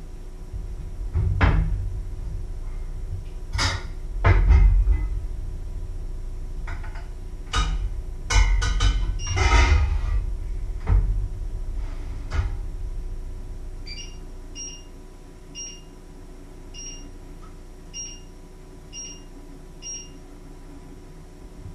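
Kitchen clatter of pots, lids and dishes being handled and set down, with several loud knocks in the first half. In the second half come about seven short electronic beeps from a kitchen appliance's controls, roughly a second apart.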